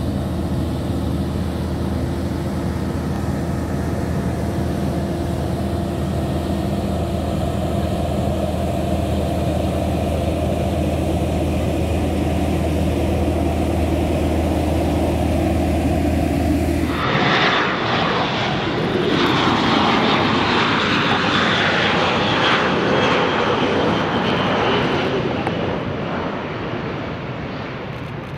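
For about the first seventeen seconds, a steady low mechanical hum with several held tones. Then, after an abrupt change, the Airbus A400M Atlas's four TP400 turboprop engines roar at high power as the aircraft moves off down the runway, fading away near the end.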